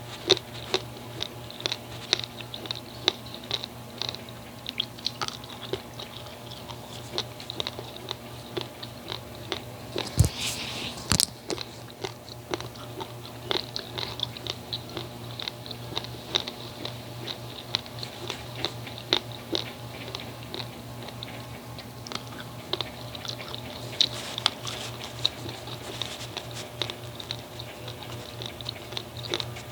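Uncooked basmati rice grains crunched and chewed between the teeth: a steady run of sharp little crunches, two to four a second, with a louder crunch and rustle about ten seconds in.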